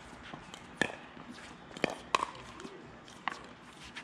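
Pickleball rally: paddles striking the plastic ball and the ball bouncing on the court, sharp pops every second or so.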